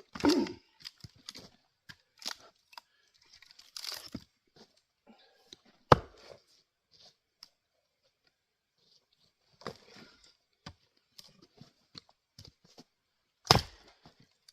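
Axe blows splitting knotty firewood: a sharp strike at the start, another about six seconds in and a third near the end, with crackling and tearing of wood fibres between them as the split opens around the knots.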